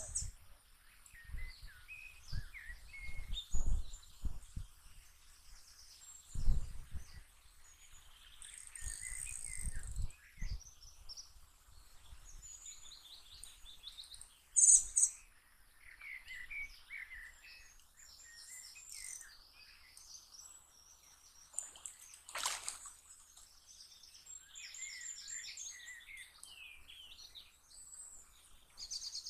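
Small birds singing and chirping, with short high trills and chirps all through. A few low thumps come in the first seconds, and there is a sharp click about fifteen seconds in.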